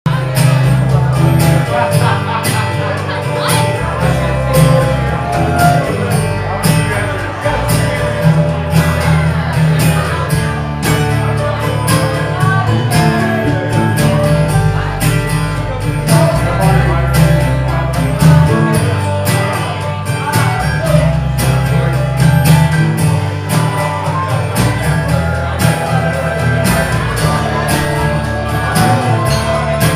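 Live acoustic country-folk band playing an instrumental introduction on guitars, bass and percussion, with a steady beat.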